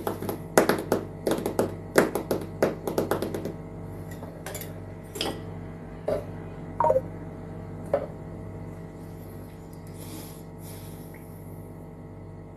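A spoon clinking and knocking against a cooking pot of rice simmering in milk. There is a quick run of clicks for the first few seconds, then a few scattered knocks, one with a brief ring, over a steady low hum.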